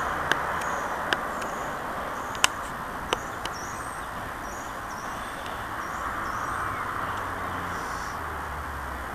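TGV Duplex high-speed train rolling slowly away over the tracks, a steady rumble with a few sharp clicks in the first three seconds or so. Small birds chirp over it.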